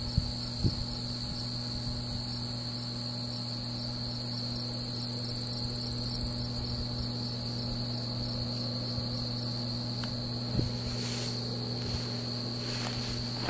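Crickets trilling steadily in the grass, a continuous high-pitched ringing, over a low steady drone. A few soft knocks near the start and about ten and a half seconds in.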